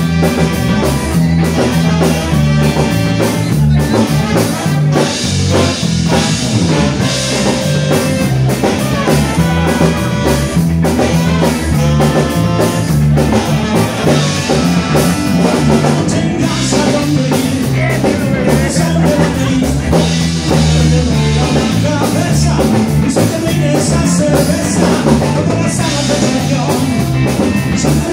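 Live band playing an upbeat number on trumpet, saxophone, electric bass, electric guitar and drum kit, with a man singing into a microphone.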